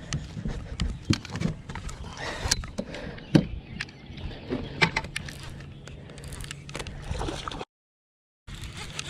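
Handling noise on a small fishing boat: scattered knocks and clicks with some water sloshing, and a steady low hum that sets in about halfway through. The sound cuts out briefly near the end.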